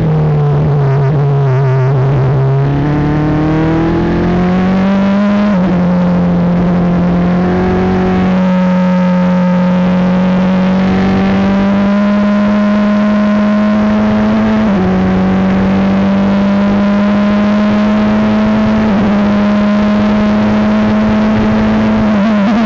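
Formula 3 race car engine heard onboard, close to the driver. Its note falls as the car slows for a corner, then climbs steadily under full acceleration, dropping a step at each upshift: once about five seconds in, once about halfway, and once more near the end.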